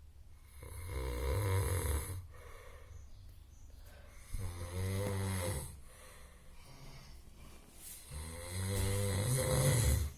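A person snoring loudly in deep sleep: three long, rattling snores about four seconds apart, each a low rumble that the uploader likens to an angkot minibus engine.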